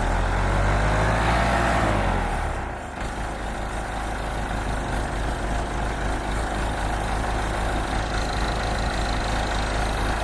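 Backhoe engine running: louder for the first two seconds or so, with a whine that rises and then falls away, then settling into steady running.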